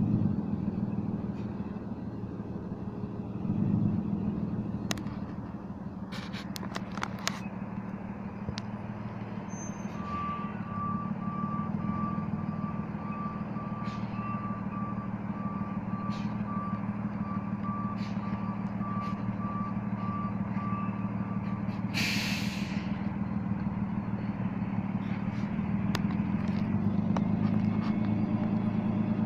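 Tow truck engine running steadily while its reversing beeper sounds at about two beeps a second for some ten seconds, then a short hiss of the air brakes. A few sharp metallic clicks come before the beeping.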